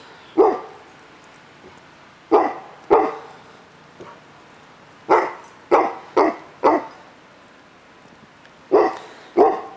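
A dog barking: about nine short, sharp barks in loose groups of two to four, with pauses of a second or two between groups.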